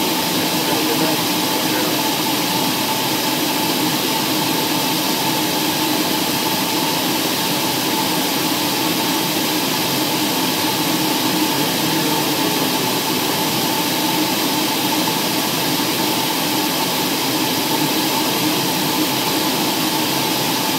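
Steady drone of an aircraft's engines and rushing air heard from inside the cabin in flight, with a constant hum running through it.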